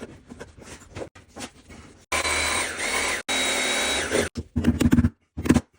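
A power tool runs in two bursts of about a second each, a steady whine whose pitch dips briefly under load, followed by scattered knocks and clicks.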